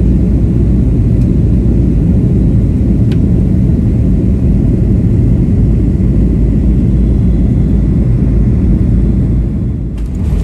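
Airliner cabin noise: the steady, loud low rumble of the engines and airflow heard from a window seat inside the cabin. Near the end the level dips briefly and the rumble changes as the plane rolls down the runway.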